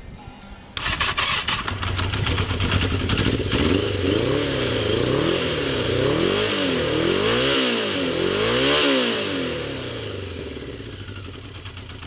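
1982 Yamaha XJ650 Seca's air-cooled inline-four engine, fitted with an aftermarket exhaust of unknown brand, starts up about a second in. It idles, is revved about five times in quick succession, and settles back to idle.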